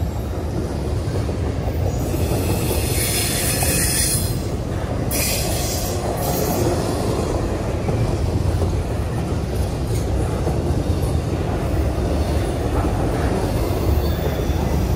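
Norfolk Southern double-stack intermodal freight train rolling past: a steady rumble of steel wheels on rail, with two bursts of high-pitched wheel noise about two to four seconds in and again around five to six seconds.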